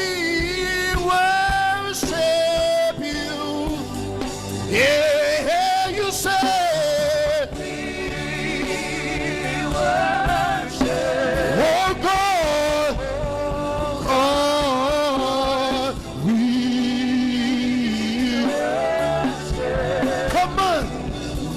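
Live gospel worship music: a male lead singer holding long, wavering notes with vibrato over a band and congregation, singing a slow praise song.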